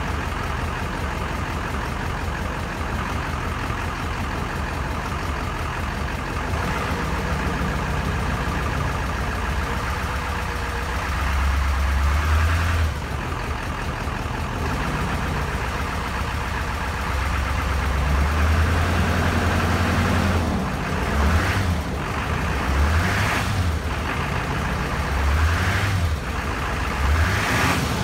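Duramax 6.6 V8 turbodiesel of a 2001 GMC Sierra 2500HD running on newly replaced injectors: idling, revved up twice for a couple of seconds, then blipped in short quick bursts through the second half.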